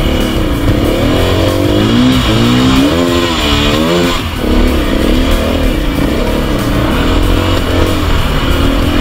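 Dirt bike engine revving, its pitch rising and falling again and again as the throttle is worked, most strongly a few seconds in, with a brief drop just after the middle.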